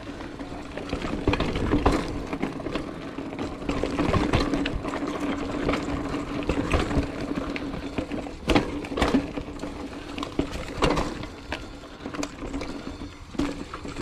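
Trek Roscoe 8 hardtail mountain bike rolling down a dirt trail: the tyres run over dirt, leaves and rocks, with a steady buzz underneath and scattered sharp knocks and rattles as the bike hits rocks and roots.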